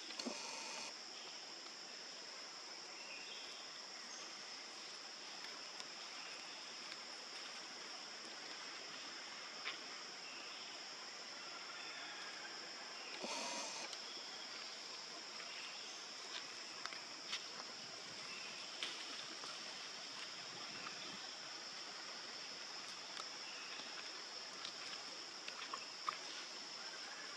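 Steady high-pitched drone of insects, with scattered small clicks and rustles and one brief louder rustle about halfway through.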